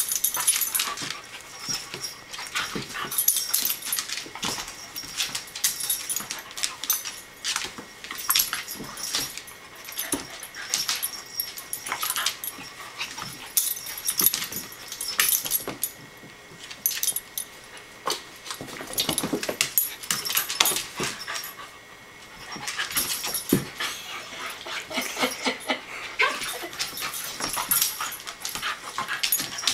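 A corgi and a cairn terrier play-fighting on a vinyl floor: a busy, irregular stream of quick scrabbles and clicks from paws and nails, with short dog growls and whines mixed in.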